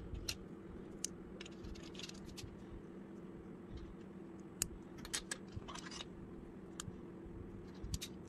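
Plastic Lego bricks and plates clicking and clattering as they are picked up and handled on a tabletop: scattered sharp clicks, some in quick clusters, over a steady low hum.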